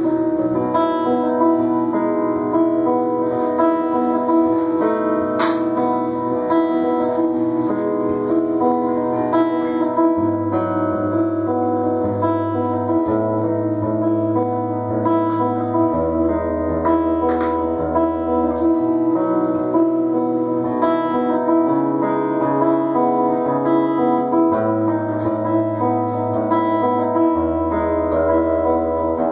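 Acoustic guitar playing an instrumental piece, fingerpicked notes over a bass note that changes every second or two. There is one sharp click about five seconds in.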